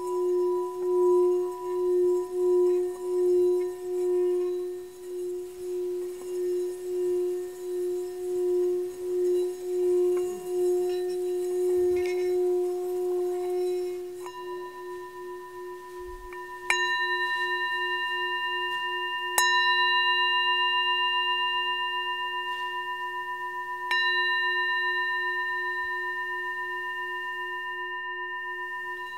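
Ringing bell-like tones: a low tone held with a slow waver, joined about halfway by higher tones, then three fresh strikes in the second half, each ringing out slowly.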